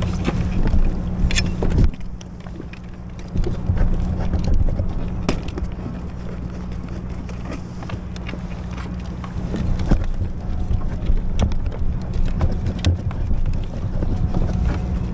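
A steady low mechanical hum, with scattered short knocks and handling clatter over it.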